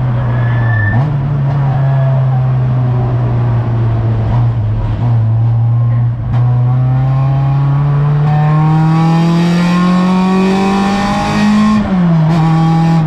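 Race car engine heard from inside its stripped, roll-caged cabin, pulling hard under acceleration. The engine note climbs steadily for several seconds, then drops sharply near the end with an upshift.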